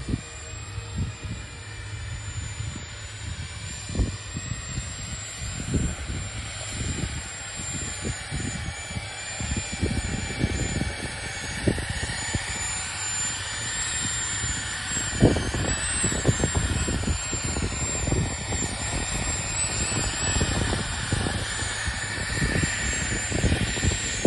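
The twin 70 mm electric ducted fans of an RC F-35B model give a steady high whine whose pitch wavers with throttle. It grows louder as the model comes in low and slows to a hover for a vertical landing. Short low gusts of wind buffet the microphone throughout.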